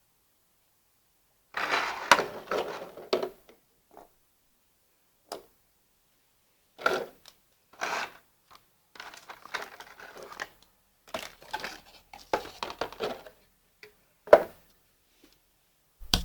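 Packaging being handled: crinkling and rustling in short irregular bursts, with a few light clicks and a sharper knock near the end.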